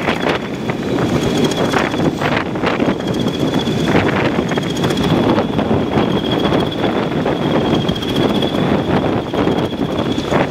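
Two English Electric Class 20 diesel locomotives working hard under full power, heard from an open window of the coach right behind them: a heavy, steady engine drone with a thin, steady high whistle over it, and wind buffeting the microphone.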